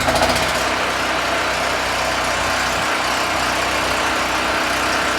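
Predator 4375 portable generator's single-cylinder engine running steadily, freshly started on its first recoil pull.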